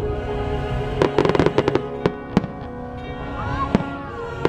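Aerial fireworks going off over music: a rapid cluster of crackling pops about a second in, then a single bang a little later.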